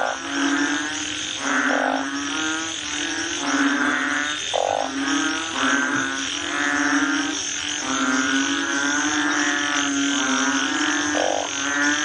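Several frogs croaking in a chorus: pulsed calls about a second long overlap and follow one another without a break, over a steady low drone, with a few short higher calls mixed in.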